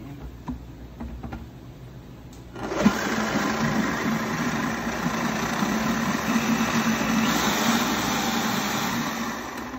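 Countertop blender switched on about two and a half seconds in, running steadily at speed for about seven seconds as it purées avocado-tomatillo salsa, then winding down near the end.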